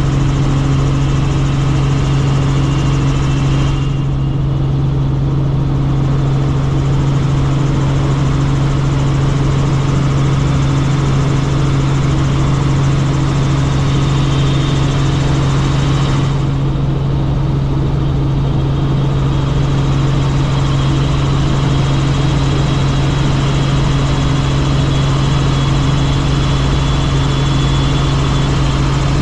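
Helicopter running: a loud, steady drone with a strong low hum and a faint high whine. The higher hiss thins out briefly twice.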